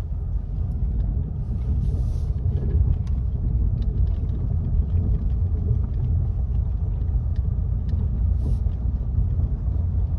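Ford Mustang driving slowly over a wooded dirt track, heard from inside the cabin: a steady low rumble of engine and tyres, with scattered small ticks and two brief hisses, about two seconds in and late on.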